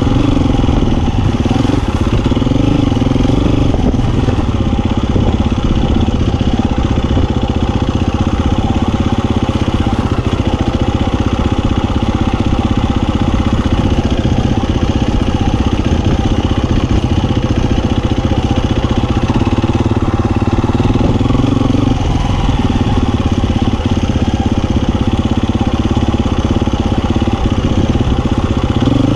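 Husqvarna FE350 dirt bike's single-cylinder four-stroke engine running steadily on the move, its note shifting in pitch with the throttle near the start and again about twenty seconds in.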